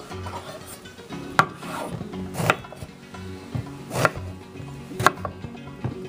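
Chef's knife cutting through peeled eggplant and knocking on a wooden cutting board: about five sharp chops, roughly a second apart.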